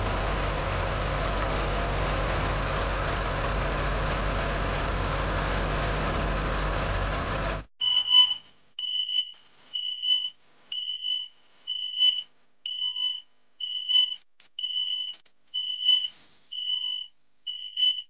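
Cartoon truck engine sound effect, a steady low rumble that cuts off abruptly about eight seconds in. It is followed by a high electronic beep that repeats roughly once a second, like a vehicle warning beeper.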